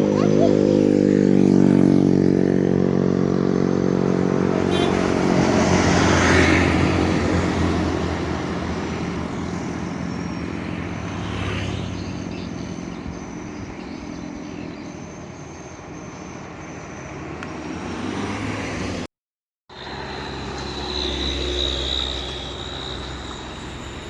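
Large diesel buses labouring up a steep hill and passing close by. A steady engine drone fades over the first few seconds, a louder pass comes about six seconds in and another about eleven seconds in, and engine noise returns after a short break in the sound near the end.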